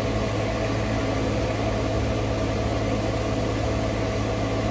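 Steady low hum with a hiss over it, unchanging throughout.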